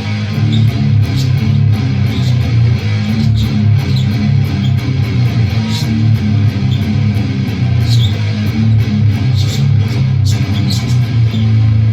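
Electric guitar tuned to drop A playing a heavy, low riff of rhythmic palm-muted chugs, with a note left ringing near the end.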